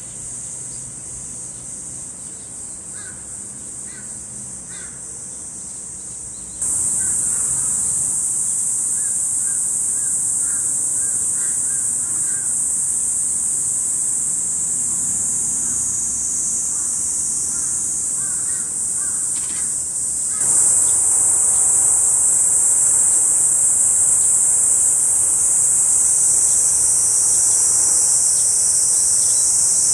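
Summer cicadas buzzing steadily in a high-pitched chorus, stepping louder about seven seconds in and again about twenty seconds in.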